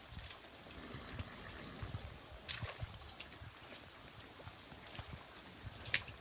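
Shallow runoff water streaming and trickling across a flooded, muddy yard, a steady hiss, with two short sharp sounds about two and a half seconds in and near the end.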